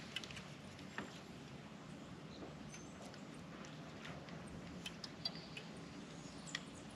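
Quiet outdoor ambience with a faint steady low hum and a few scattered light clicks.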